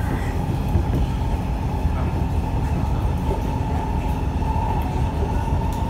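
Siemens C651 metro train running at speed, heard from inside the carriage: a steady low rumble of wheels on rail with a constant whine and a few faint clicks.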